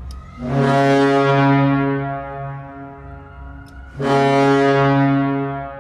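St. Louis Blues arena goal horn sounding two long, deep blasts about three and a half seconds apart, each fading away with echo. It is being blown in a pre-game horn test.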